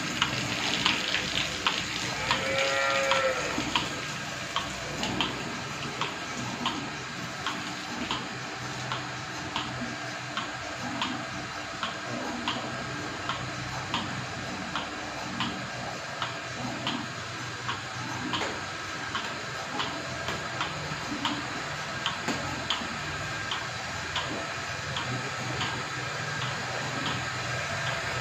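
Single-bucket milking machine milking a cow: the pulsator clicks regularly about once a second over the vacuum pump's steady hum. A cow moos once about two to three seconds in.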